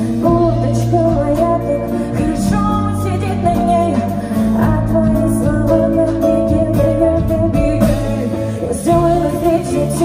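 A woman singing into a microphone with instrumental accompaniment, holding long notes.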